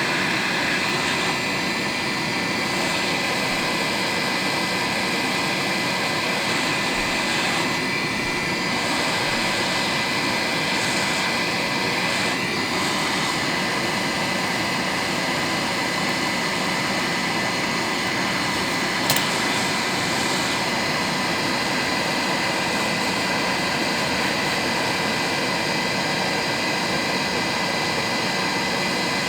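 FNIRSI SAG-55 hot air rework gun's fan blowing steadily, a whooshing rush of air with a faint high whine over it. A single click about two-thirds of the way through.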